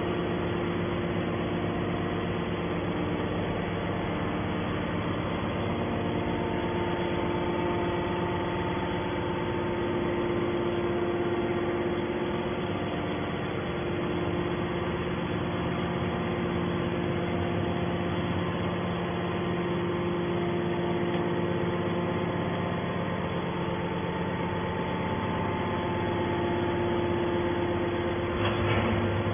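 Hydraulic scrap metal baler's power unit running: a steady machine hum with several held tones that shift slightly now and then.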